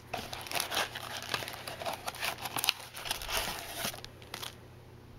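Foil trading-card packs crinkling and a cardboard box rustling as the packs are handled, pulled out and set down; the handling dies down about four and a half seconds in.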